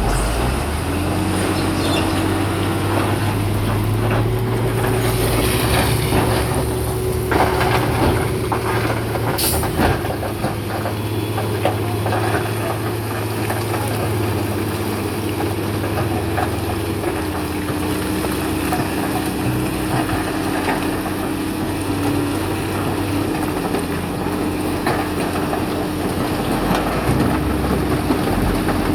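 Bulldozer's diesel engine running steadily under load, its note dipping slightly about halfway through, with a cluster of sharp metallic clanks and scrapes between about five and ten seconds in.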